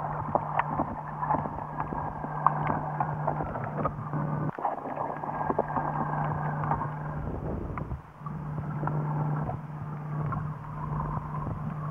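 Underwater sound picked up by a diver's video camera: water rushing and sloshing with a scatter of sharp clicks, over a steady low hum. It cuts out for an instant about four and a half seconds in.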